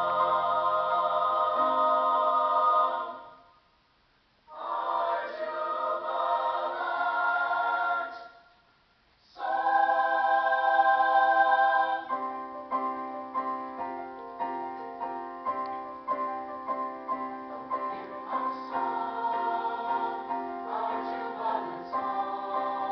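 A choir singing held chords that break off twice for a moment of silence, then carrying on into a faster-moving passage about twelve seconds in.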